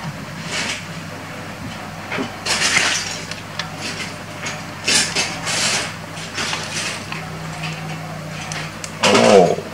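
Small plastic LEGO bricks clicking and rattling in irregular bursts as they are handled and pressed together.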